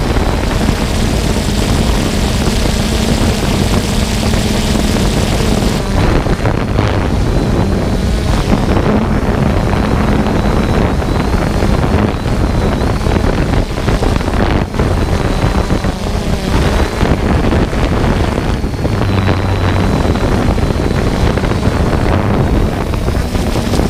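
Steady hum and whine of a quadcopter drone's motors and propellers as picked up by its own microphone, mixed with a loud rush of wind on the microphone.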